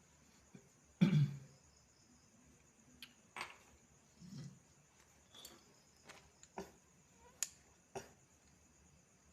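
Irregular clicks and light knocks, about a dozen, with one louder thump about a second in, over a faint steady high-pitched background hum.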